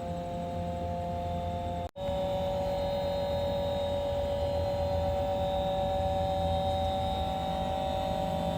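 Hitachi air conditioner outdoor unit giving off the abnormal noise it is filmed for: a steady two-note whine over a low hum. About two seconds in, the sound cuts out for an instant and comes back slightly higher in pitch.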